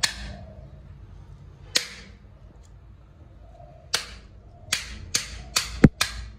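A round stone pounding the back of a knife blade, driving it through a whole tuna to cut it into pieces. Sharp cracks: two spaced strikes, then a quickening run of about six in the last couple of seconds.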